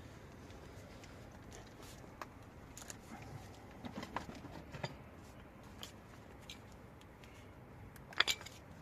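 Scattered light clicks and clinks of hand tools and metal parts, with a sharper pair of clicks near the end: hand work on a car's front brake caliper and pads.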